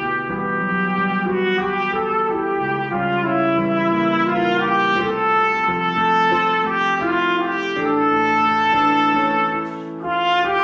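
Slow, legato brass music: a trumpet-like melody in held notes over sustained lower chord tones, with a short break about ten seconds in.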